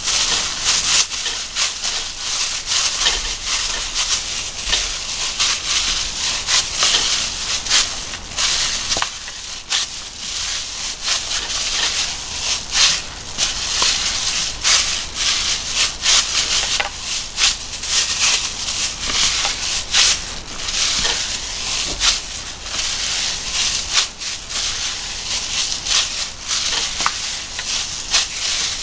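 Thin plastic bag worn over a hand crinkling and rustling in quick, uneven strokes as it kneads crumbly mashed-potato and flour gnocchi dough in a bowl.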